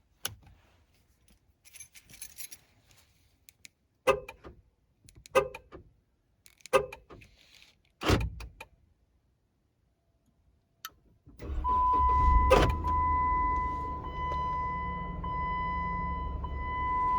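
A few light clicks and a jangle, then four sharp clunks about a second and a half apart; about eleven seconds in, the Jeep Wrangler JK's 3.6-litre V6 starts by remote and settles into a steady idle, with a steady high tone over it.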